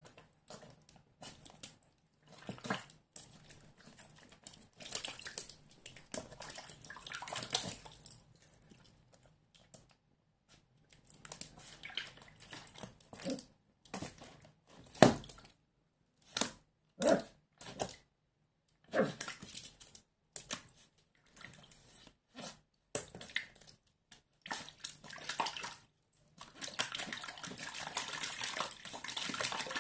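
Water splashing and slapping in a shallow plastic tub as a Schipperke puppy paws at it and bites it, in irregular bursts of sharp slaps and splashy stretches with short pauses between them.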